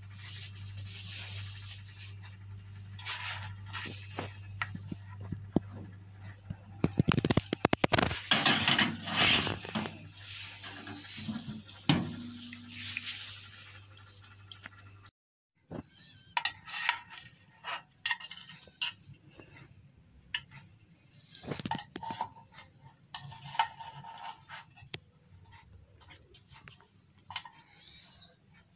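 Metal bakeware handling: a muffin tin and oven rack clattering and clinking, loudest about seven to nine seconds in, over a steady low hum. After a brief break the hum is gone, and lighter scattered clicks and taps follow.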